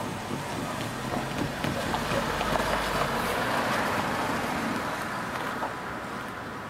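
A car driving over a railway level crossing: engine and tyre noise swell as it passes about two to four seconds in, then fade as it moves away.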